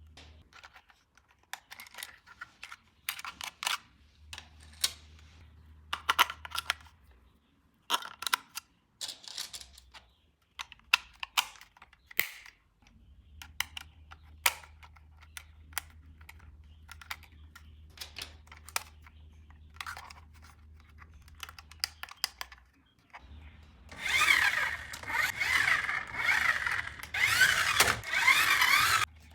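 Scattered clicks and taps of toy packaging being handled, then, from about four-fifths of the way in, loud crinkling and rustling of wrapping being unwrapped.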